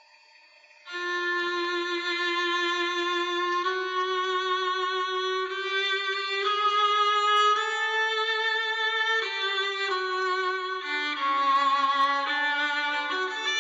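Bowed viola playing a slow melody of held notes with vibrato, starting about a second in.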